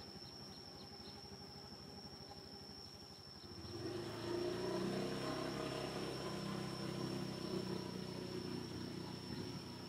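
A steady, high insect whine throughout, joined about three and a half seconds in by a louder, steady motor-vehicle engine hum that fades near the end.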